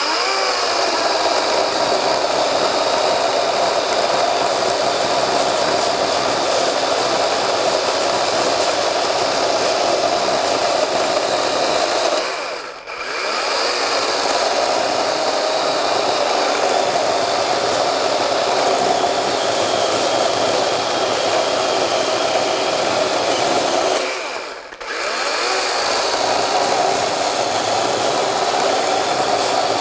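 DeWalt 12-inch XR cordless electric chainsaw running steadily under load, cutting through black locust hardwood in three long cuts. The motor sound drops briefly twice between cuts.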